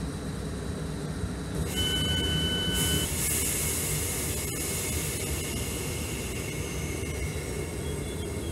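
South Western Railway suburban electric multiple unit at the platform with a steady low hum from its equipment. About two seconds in, a steady two-pitch door-closing warning beep sounds for about a second and a half, followed by a hiss as the doors shut and the train starts to pull away.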